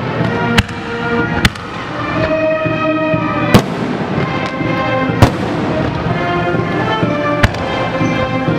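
Fireworks bursting with sharp bangs, five loud ones about one to two seconds apart, over music playing steadily.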